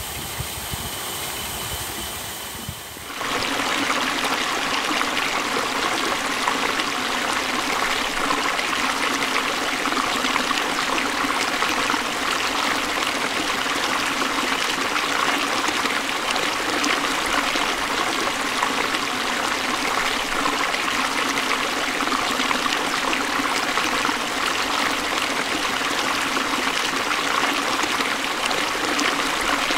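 A paddle-wheel aerator's motor runs as its paddles splash through pond water; the sound cuts off suddenly about three seconds in. It gives way to the steady rushing of water pouring over a low concrete weir.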